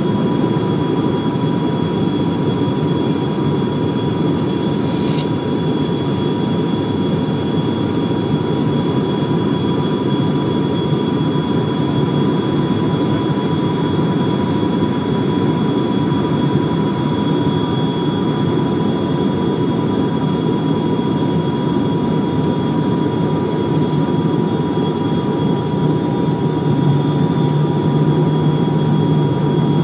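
Cabin noise of an ATR-72's turboprop engine and spinning propeller heard from a seat right beside the nacelle: a steady, heavy drone with a constant thin whine above it. A deeper note in the drone grows a little stronger near the end.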